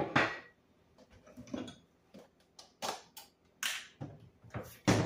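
Kitchen clatter: about six sharp knocks, clicks and taps over five seconds as containers and other kitchen items are handled, with the loudest at the start and near the end.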